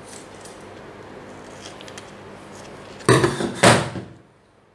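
Two short bursts of handling noise about half a second apart, a little after three seconds in: a tape-covered aluminium foil sheet and scissors being moved about on a tabletop.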